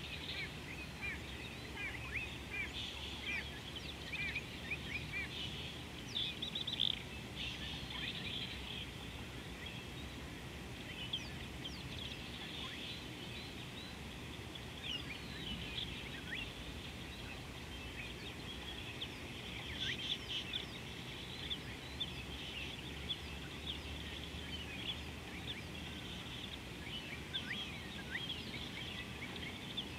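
Many wild birds chirping and calling at once in the African bush, a dense scatter of short, quick high notes over a steady low background noise.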